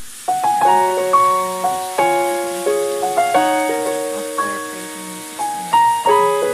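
Background piano music: notes and chords struck one after another and left to fade.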